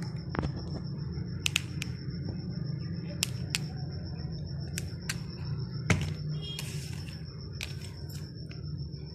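Short, sharp clicks and a brief crinkle from a knife tip piercing cling film stretched over a plastic popsicle mould, coming at irregular intervals, the loudest about six seconds in. Under them runs a steady low hum with a faint high whine.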